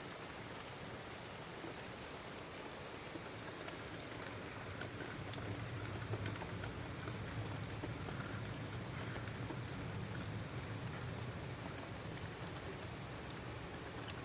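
Heavy rain falling steadily: a dense hiss with scattered sharper drop ticks. A low rumble comes up about five seconds in and carries on underneath.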